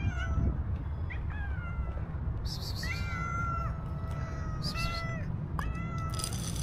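Street cat meowing repeatedly for food, about five meows, with one long drawn-out meow near the middle. A steady low rumble runs underneath.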